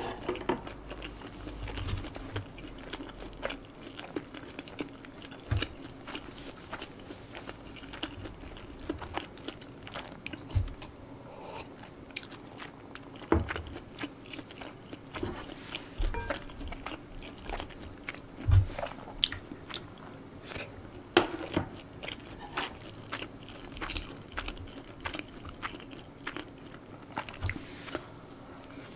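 Close-miked chewing and biting of stir-fried spicy pork, with many short mouth clicks and smacks scattered irregularly throughout.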